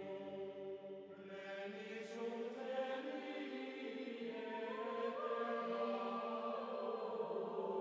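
Background music: chant-like choral voices holding long notes that change pitch in slow steps.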